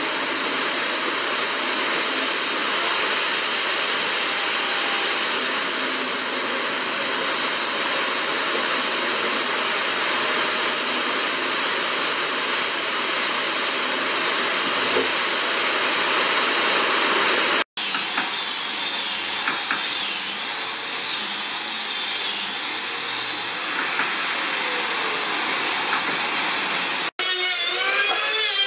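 A steady hiss with a faint constant tone, cut off briefly twice. Near the end, rhythmic strokes of sandpaper rubbing by hand across a wooden stool top.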